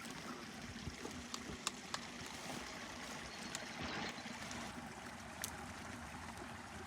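Water running steadily in a stream, with a few scattered faint clicks.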